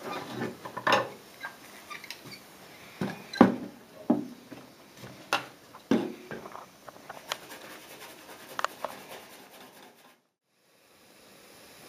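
Scattered light clicks and knocks of metal soldering tools against copper gutter lining. The sound cuts out briefly near the end.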